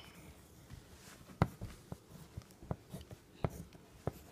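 Colored pencil drawing short strokes on paper: faint, irregular taps and scratches, five or six of them.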